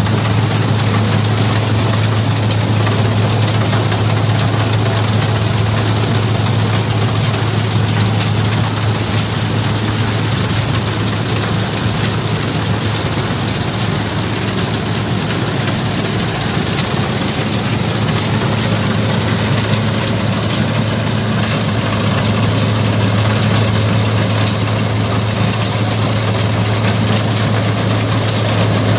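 A heavy engine running steadily at constant speed, with a strong low hum throughout.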